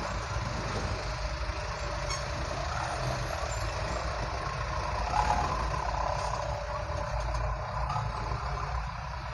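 Delivery truck's engine running steadily with road and traffic noise around it, swelling briefly about five seconds in.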